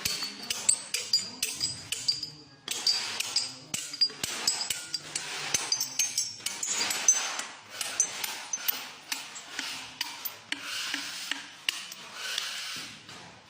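Quick irregular series of small hard taps and clinks, several a second, some leaving a short high ring like glass or metal being struck.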